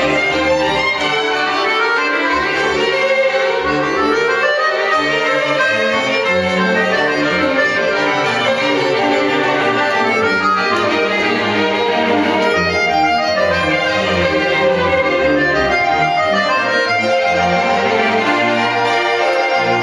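Accordion playing out front over a string orchestra, with a solo violin also playing.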